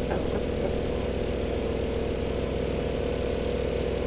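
An engine idling steadily on the bowfishing boat: an even, unchanging hum.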